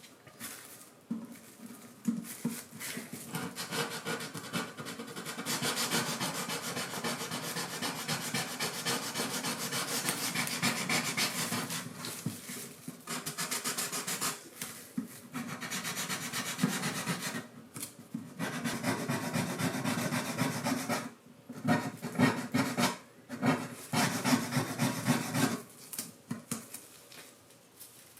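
Wood being scraped or sanded by hand on a classical guitar in fast, repeated strokes. The strokes run almost continuously, then break into shorter bursts with pauses in the last few seconds.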